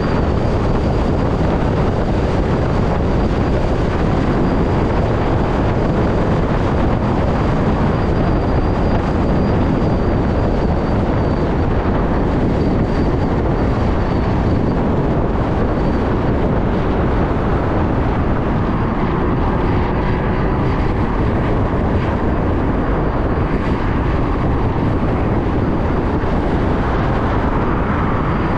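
Steady rush of wind and road noise while riding an electric motorcycle, with a faint high whine that fades out about halfway through.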